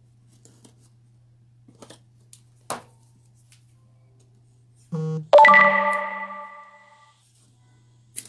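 An electronic chime about five seconds in: a short low beep, then a bright ringing tone with several clear pitches that fades over about a second and a half. Before it, a few faint snips of small scissors trimming quilling paper strips.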